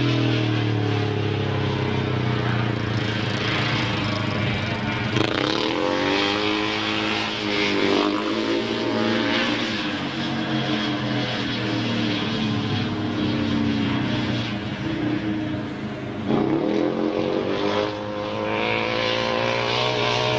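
500 cc methanol-burning speedway motorcycle running hard around an oval dirt track. The engine's pitch drops and climbs again several times as the rider shuts off and reopens the throttle through the corners.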